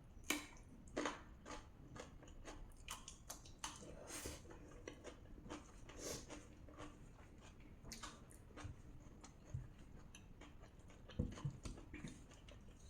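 Close-miked chewing and mouth sounds of a person eating soft rajma and rice: irregular wet clicks and smacks, with a few louder ones near the start and about eleven seconds in.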